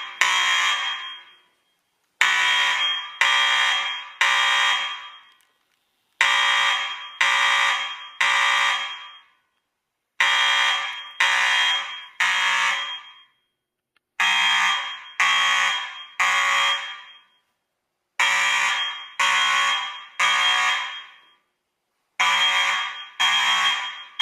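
Fire alarm sounding the temporal-three evacuation signal: three blasts about a second apart, each ringing off, then a pause, the group repeating every four seconds. It has been set off from a manual pull station.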